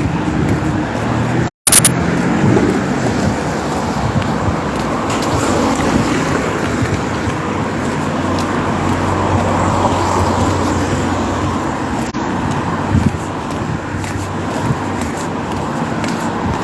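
Road traffic: cars running steadily past on the street, with the audio cutting out for a moment about a second and a half in.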